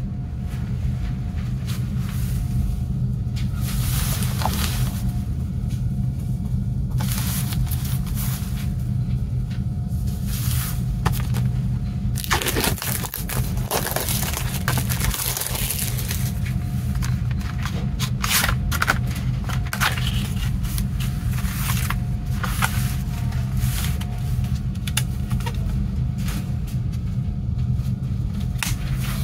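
Cellophane shrink-wrap crinkling and tearing as it is peeled off a CD case, densest about twelve to sixteen seconds in. Then come the clicks and scrapes of a plastic jewel case being opened and a disc being handled, over a steady low hum.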